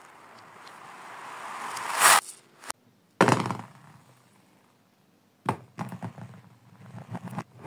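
Toy balls and wooden beads clattering on a laminate floor, played in reverse: a swelling rush that cuts off abruptly about two seconds in, another burst a little after three seconds, then a run of quick small taps that builds and stops near the end.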